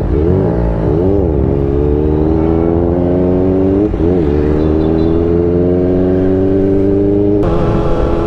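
Kawasaki ZX-4RR's 399 cc inline-four engine heard from the rider's seat: a few quick throttle blips while pulling out, then revs climbing steadily under acceleration, with a brief dip about four seconds in at a gear change.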